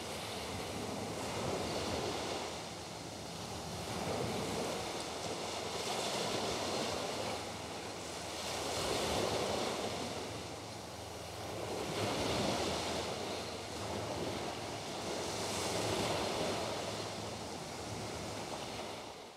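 Sea waves washing in on a shore, a rushing noise that swells and ebbs about every three to four seconds, fading out at the very end.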